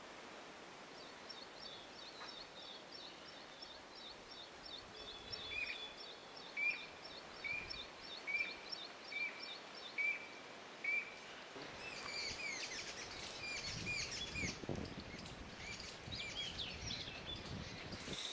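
Outdoor ambience with wild birds calling: a quick run of high chirps, about four a second, and a short call repeated about once a second. About two-thirds of the way through it changes to a busier mix of varied chirps over a low rumble.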